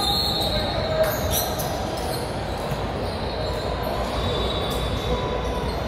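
Basketball game on a hardwood gym floor: a ball bouncing with sharp thumps, the sharpest about a second in, and short high squeaks over a steady din of voices echoing around a large hall.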